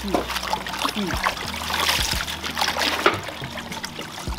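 Water splashing and trickling as hands lift handfuls of wet hibiscus leaves out of a plastic basin of wash water, with many small irregular splashes and drips.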